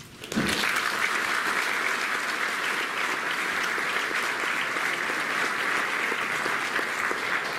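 Audience applauding steadily, starting abruptly about half a second in.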